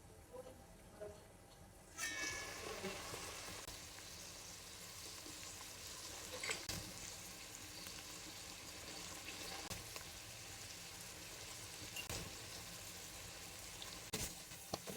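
Food frying in a hot pan. The sizzle starts suddenly about two seconds in and carries on steadily, with a few light knocks.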